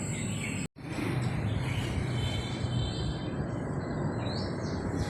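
Steady drone of a military transport aircraft's engines overhead, with a few faint bird chirps on top. The sound cuts out completely for a split second just before a second in.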